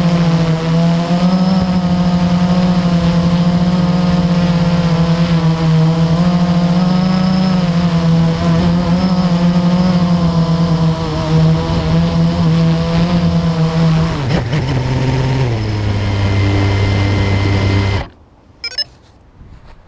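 Blade 350 QX quadcopter's brushless motors and propellers whining, heard from the on-board GoPro with wind noise, the pitch wavering as the motors work. About fourteen seconds in the pitch drops in two steps as the quad descends, and just after that it cuts off suddenly as it sets down in grass and the motors stop.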